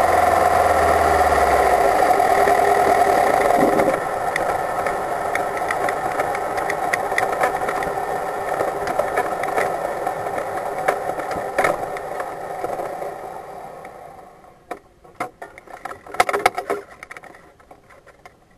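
Open-wheel race car's engine running at low revs as the car rolls slowly through the pit lane, dropping in level about four seconds in with a scattering of sharp clicks. The engine sound fades away near the end, leaving a few scattered clicks and knocks.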